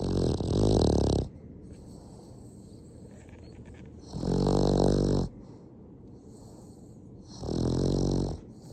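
Sleeping Boston terrier snoring: three buzzy snores about a second long, roughly three and a half seconds apart.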